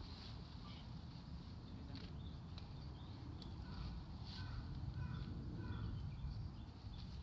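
Woodland ambience: a low rumble with scattered faint clicks and rustles, and a bird giving a short run of repeated brief calls about halfway through.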